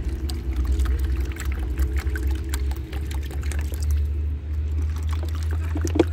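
Water being poured out, with a steady low rumble underneath.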